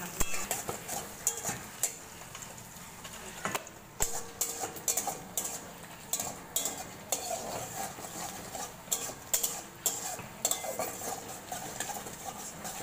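Metal spatula scraping and knocking against a kadai as sliced onions are stirred, in quick irregular strokes, over the sizzle of the onions frying in oil.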